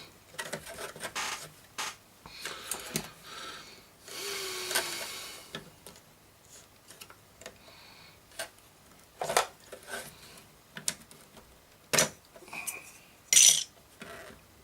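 Handling noises as the chassis of a 1968 Dansette Gem is worked out of its case: scattered clicks and knocks, a rubbing scrape about four seconds in, and a few sharper knocks in the second half.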